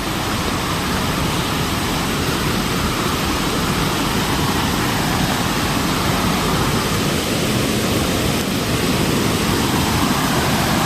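Waterfall running: a steady, even rush of water.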